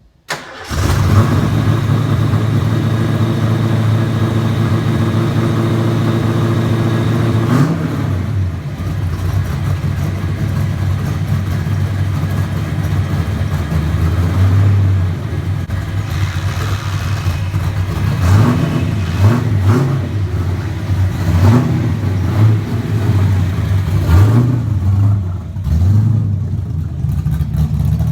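A Fox-body Mustang's 331 stroker small-block Ford V8 starts up about half a second in and runs loud and steady at idle. From about 18 s on it is revved several times in short blips.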